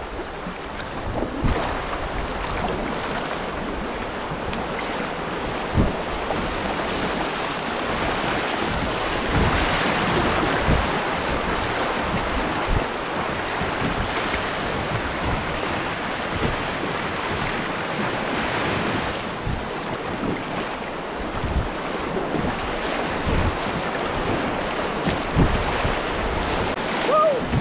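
Creek whitewater rushing around a kayak as it runs a riffle, with wind buffeting the microphone and scattered low thumps.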